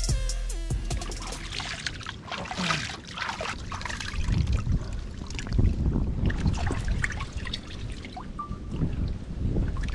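Water splashing, trickling and sloshing in irregular strokes as hands wash fish in a terracotta bowl held in shallow water. A drum-backed music track dies away in the first second.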